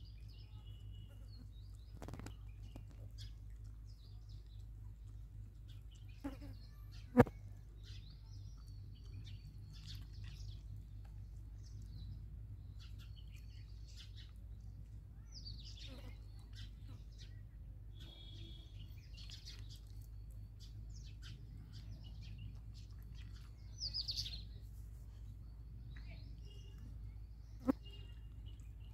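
Small birds chirping in short, scattered calls over a steady low hum. A sharp click about seven seconds in is the loudest sound, with a second, softer click near the end.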